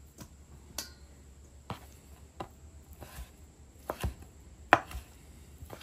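Chef's knife cutting raw flat iron steak into bite-sized pieces on a bamboo cutting board, the blade knocking on the wood about eight times, roughly once every three-quarters of a second.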